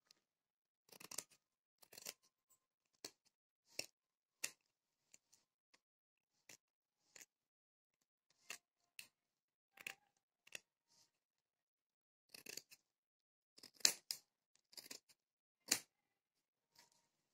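Fabric scissors snipping through folded layers of saree cloth along a chalked blouse outline: a series of separate short, sharp snips at an uneven pace, the loudest a little before the end.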